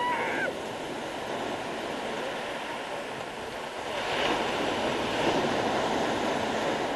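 Sea waves breaking and washing up a pebble beach, with one wave breaking louder about four seconds in.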